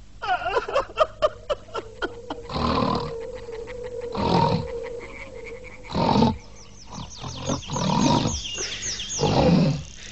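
Cartoon sound effects: a quick string of clicks, then five loud, rough roar-like cries about one and a half seconds apart, with chirping whistles in the later half.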